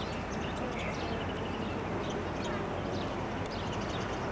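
Birds chirping, many short high calls scattered throughout, over a steady low hum.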